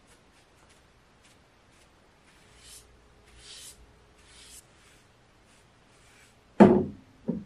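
A hand-held sponge rubbed in strokes over a wooden table top, a soft swishing with faint clicks. Near the end come two thumps, the first much louder.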